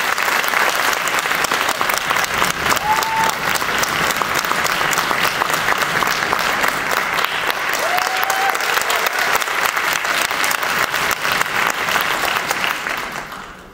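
Audience applauding: dense, steady clapping that dies away near the end. Two short high-pitched calls rise above it, one about three seconds in and one about eight seconds in.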